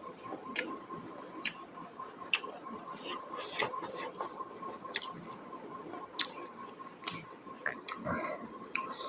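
A person chewing food close to the microphone, with sharp wet mouth clicks and smacks about once a second. A faint steady tone hums underneath.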